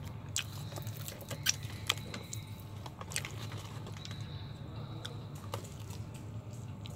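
Close-up eating sounds: chewing with scattered sharp clicks and mouth smacks, a plastic sauce sachet handled at the start, and a bite into crispy fried chicken near the end.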